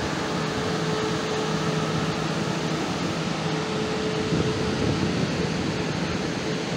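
KTM ETS electric train beside the platform, giving a steady whirring hum from its onboard equipment, with a low steady tone and a higher tone that fades in and out.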